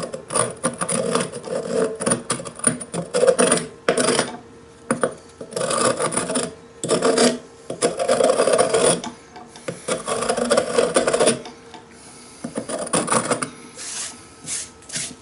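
Rough scraping and rubbing in a series of strokes, each lasting about a second, with a few sharp clicks between them.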